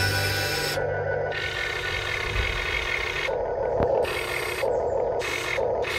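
Radio-controlled excavator's small electric motors and gearing whirring in short stretches that start and stop as the boom and bucket are worked.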